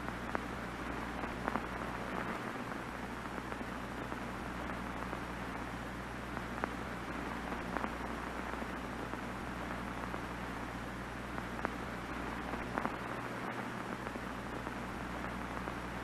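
Off-air television static: a steady hiss with a low hum beneath it and a few faint clicks.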